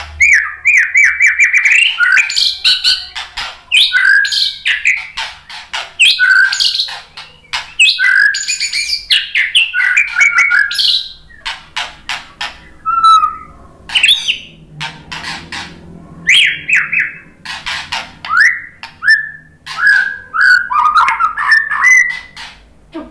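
White-rumped shama singing a long, loud, varied song of clear whistles, sweeping notes and quick rattling chatter, mixing in mimicked fill-in phrases. The song thins out for a few seconds about halfway through, then picks up again.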